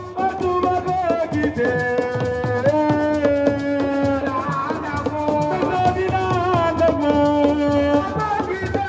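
Senegalese dance music: a steady drum beat with shakers under a melody of held notes that step from pitch to pitch.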